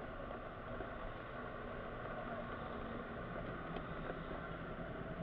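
Steady engine and road noise inside a Mitsubishi car's cabin while it is being driven.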